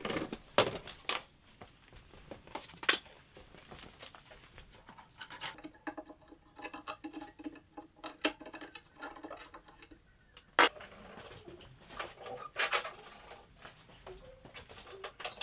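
Scattered knocks, taps and scrapes of hand tools and wooden boards being handled on a workbench, with a faint pitched sound in the middle.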